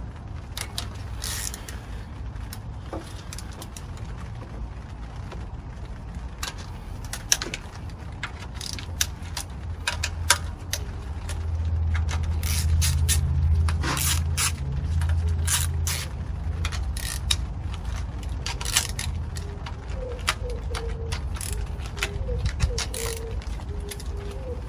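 Hand ratchet and socket clicking and scraping in irregular short bursts, with metal clinks, as the nuts holding a Honda B18C engine's valve cover are loosened and taken off. A low hum runs underneath and swells about halfway through.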